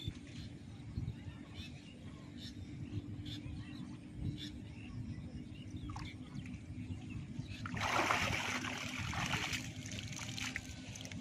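Water splashing and sloshing as a person wades and hauls a weed-tangled fishing net through shallow water, with a louder stretch of splashing about eight seconds in.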